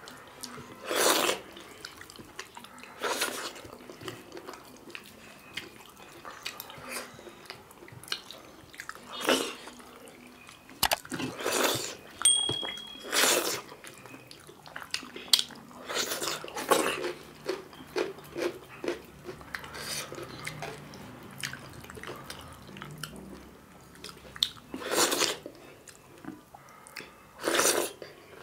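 Close-miked eating sounds of people eating dhido and chicken curry by hand: wet chewing and sticky mouth clicks, with a louder smack or slurp every few seconds.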